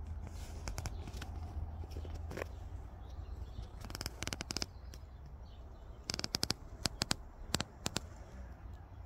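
Short clusters of soft clicks and rustles from handling of a handheld phone microphone, over a steady low rumble.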